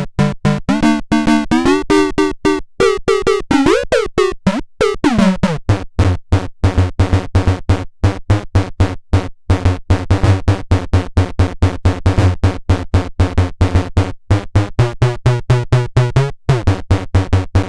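Cosmoton Duet synthesizer playing a fast pulsing sequence of about six notes a second. Its pitch sweeps up and down in the first few seconds, then it settles into a steady low repeating bass pattern.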